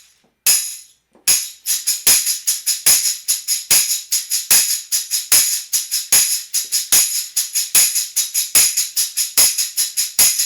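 Tambourine played solo: one strike, then from about a second in a steady rhythmic pattern of jingle hits, several a second.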